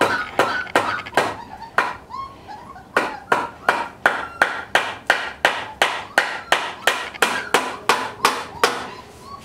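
Adult dog licking puppies with quick, wet, smacking licks, about three a second, evenly paced through the second half. A few short high puppy squeaks come in the first second or two.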